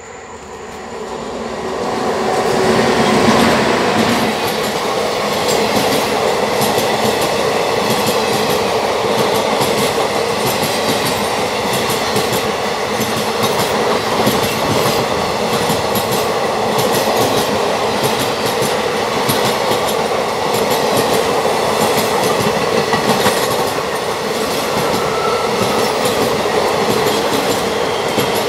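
An Indian Railways electric locomotive and its long rake of blue passenger coaches run through at speed. The sound builds over the first three or four seconds as the train arrives, then holds as a loud, steady rumble of wheels on rail with a regular clickety-clack at the rail joints.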